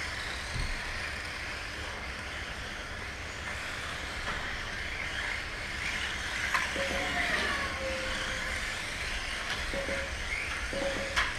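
Several Kyosho Mini-Z electric RC cars racing, their small motors whining up and down as they accelerate and brake through the corners, over a steady hiss. A couple of sharp clicks, the louder near the end, as a car knocks the track barrier.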